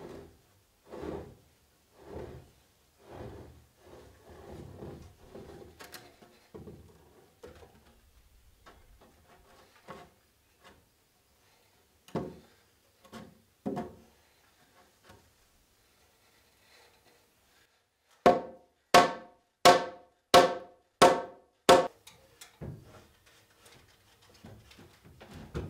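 A timber joist being fitted into steel I-beams: scattered knocks of wood against wood and steel, then, about three quarters of the way in, a run of about seven loud, evenly spaced blows with a short ring, knocking the joist into place.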